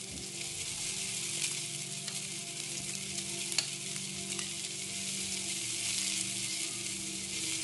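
Yellowfin tuna steaks searing in a hot cast iron pan: a steady, even sizzle with a couple of sharp spatter pops, over a low steady hum.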